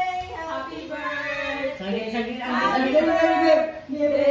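Several voices singing together, women's and children's among them, holding and bending their notes.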